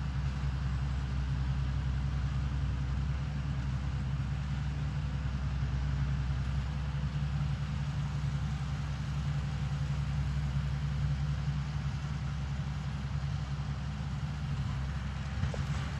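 Valtra 6300 tractor's diesel engine running steadily while it works a Welger RP12 round baler, with a constant low hum.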